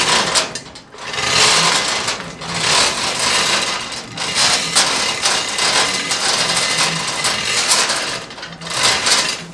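Hand chain hoist being pulled hand over hand to lift a steel smoker tank, its chain rattling and clattering almost continuously, with a few brief lulls.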